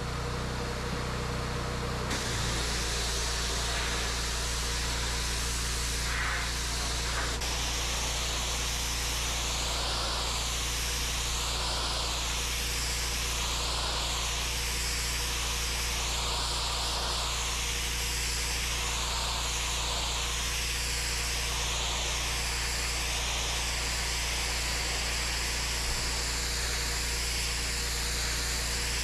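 Pressure washer lance spraying a high-pressure jet onto wet stone patio slabs, over a steady low machine hum. The hiss of the spray rises and falls in a slow, even rhythm as the jet is swept back and forth.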